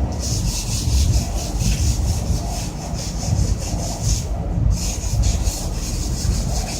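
Quick back-and-forth hand scrubbing strokes on the water heater's metal casing, several strokes a second, with a short pause about four seconds in. A steady low rumble runs underneath.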